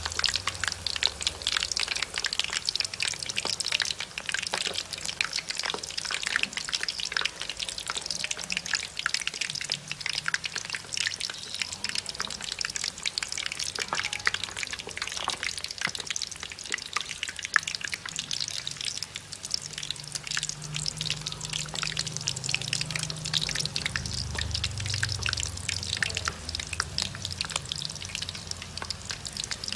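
Chicken feet deep-frying in a wok of hot oil: dense, steady crackling and popping of bubbling oil.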